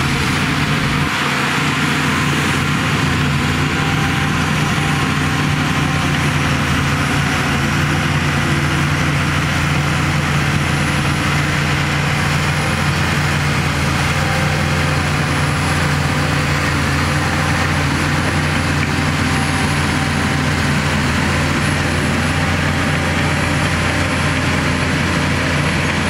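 Shantui DH17 bulldozer's diesel engine running steadily under load while pushing soil, a loud constant drone that holds the same pitch throughout.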